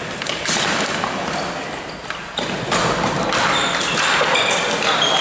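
Sounds of ball hockey play: sticks and the ball knocking and thudding on the floor and boards, with a sharp knock about two and a half seconds in.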